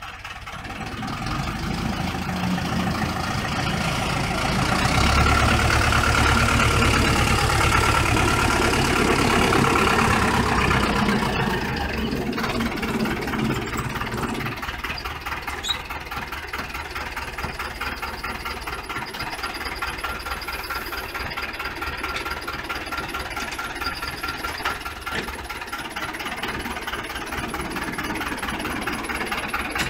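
Farm tractor engine working a front loader with a round hay bale: it speeds up over the first few seconds, runs loudest for several seconds, then drops back to a steadier, lower running speed about twelve seconds in.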